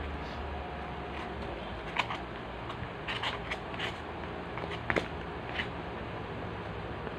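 Hands handling food: scattered light crackles and clicks, a few at a time, over a steady low hum.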